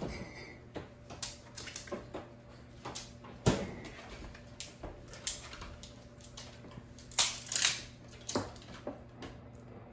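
Kitchen handling noises: scattered knocks, clicks and rustles as items are picked up and set down on the counter, the sharpest about three and a half seconds in and a pair near the end. A steady low hum runs underneath.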